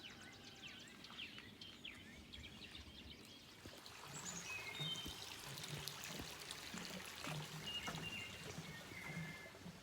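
Faint woodland birdsong: quick falling chirps, then several clear whistled notes at different pitches from about four seconds in. Under the birds, soft regular footsteps of someone hiking start about halfway through.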